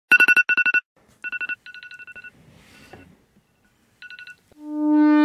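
Smartphone beeping: rapid groups of short, high electronic beeps of one pitch, the first two groups loud and the later ones quieter. Near the end a low, steady synth note swells in.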